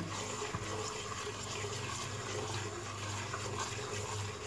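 Semolina frothing and sizzling in hot ghee in a non-stick pan, stirred with a silicone spatula: a steady, soft bubbling sizzle. The froth and the ghee starting to separate are the sign that the semolina is almost fully roasted.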